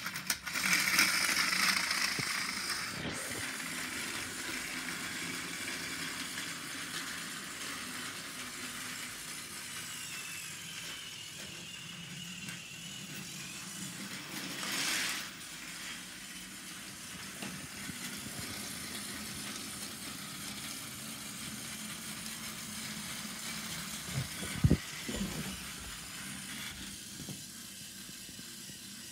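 Battery-powered Plarail toy train running on plastic track: a steady motor whir with the rattle of wheels on the track, loudest at first and slowly fading as it moves away, with a louder pass about halfway through. Two sharp knocks near the end.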